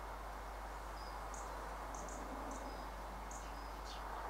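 Quiet rural evening ambience: a steady hiss with a handful of short, high chirps scattered through it.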